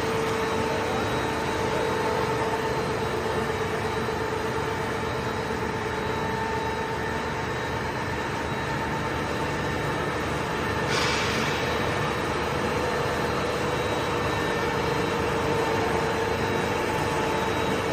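Feed extrusion production line machinery running: a steady industrial drone with a constant hum of several steady tones. A brief high hiss rises over it about eleven seconds in and fades within a second or two.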